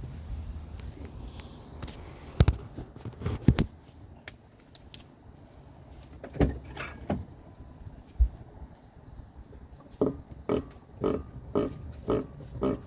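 An unidentified mystery noise from a 2019 Ford Edge ST: a few scattered knocks, then from about ten seconds in a short noise repeating evenly about twice a second.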